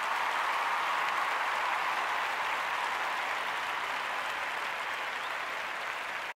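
Audience applauding steadily, fading slightly, then cut off abruptly near the end.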